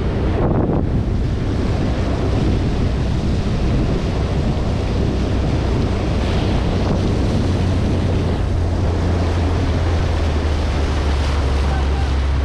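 Small motorboat running at speed: a steady low engine drone under the rush of water along the hull and wind buffeting on the microphone.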